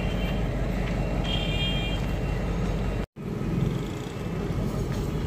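Diesel engine of a standing railway works train running steadily with a low, even drone. The sound drops out abruptly for a moment a little after three seconds, then the drone carries on.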